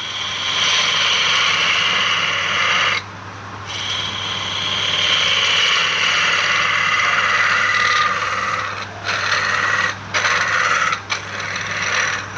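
Wood lathe running with a turning tool cutting into the spinning wood: a steady motor hum under a loud scraping hiss. The cut stops for about half a second a little after the third second, and briefly three more times near the end.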